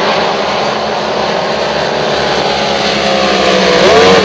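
Engines of a field of racing vehicles running hard just after the start flag drops, a dense steady mix of several engines. Near the end one engine's pitch swoops sharply up and back down as it revs or passes close.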